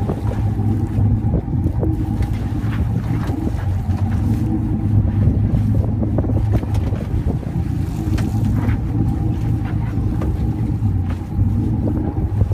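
Boat engine running steadily, a low even hum, with scattered clicks and knocks from gear on deck.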